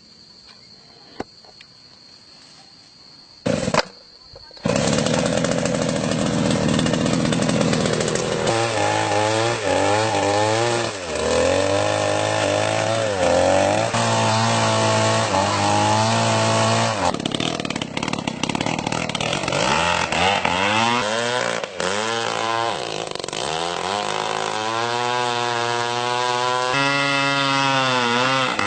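Two-stroke chainsaw engine mounted on a bicycle, coming on about five seconds in after a quiet start, then running loudly and revving up and down again and again.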